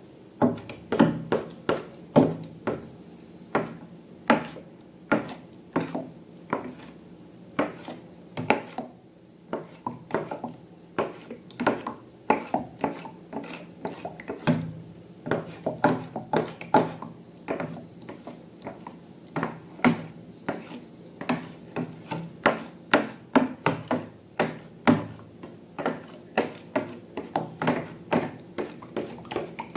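Slime being mixed and worked by hand, giving a quick, irregular run of sharp clicks and sticky pops, about two to three a second.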